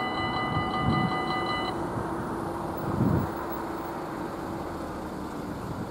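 Level crossing warning bell ringing in a fast, even pulse, which cuts off about a second and a half in. After that a low steady hum goes on.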